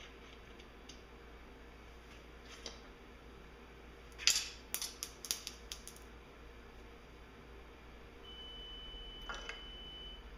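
Light metallic clinks and taps as the steel shift shaft and shift cam are worked out of a MerCruiser Bravo sterndrive upper-unit housing. A quick run of sharp clinks comes about four to six seconds in, with single taps before and near the end.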